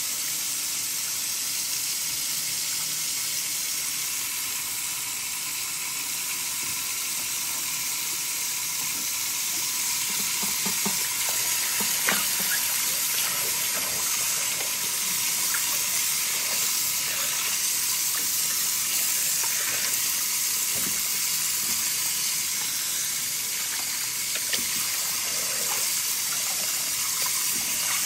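Kitchen tap water running steadily onto whole tilapia in a stainless-steel bowl, splashing over the fish. A few light knocks break in here and there.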